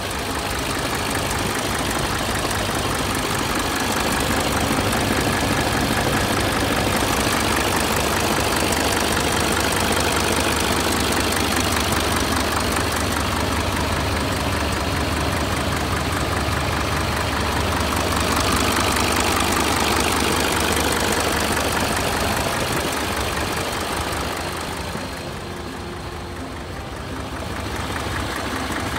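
Hino Ranger truck's diesel engine idling steadily, briefly quieter for a couple of seconds near the end.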